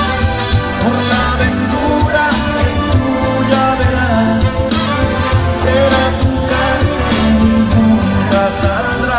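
Live band music played loudly through a concert sound system, with a steady beat under the melody.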